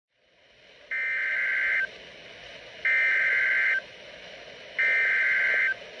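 Three bursts of EAS SAME header data tones, each just under a second and spaced about two seconds apart, from NOAA Weather Radio playing through a Midland weather alert radio's speaker, with steady radio static hiss between them. This is the coded header that opens an emergency alert broadcast, here a dust storm warning.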